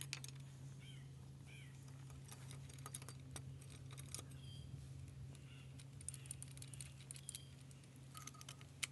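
Faint, irregular metallic clicks and taps of a spanner working the bolts around a motorcycle engine's clutch cover as they are loosened, over a steady low hum.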